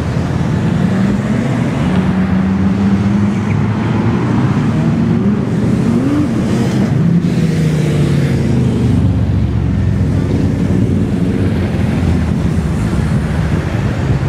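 Motor vehicle engine running, its pitch rising and falling a few times, over steady traffic noise.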